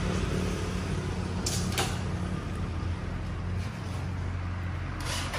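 A steady low motor hum, with two short clicks about a second and a half in and another sharp click near the end.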